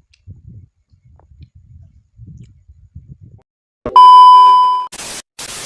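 Faint low chewing sounds, then about four seconds in a loud beep near 1 kHz lasting under a second, followed by two short bursts of hiss like static, an edited-in sound effect.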